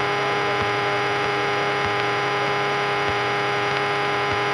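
Steady hum and hiss of a Cessna 172's cockpit intercom audio in flight, with the engine's drone underneath holding several steady tones.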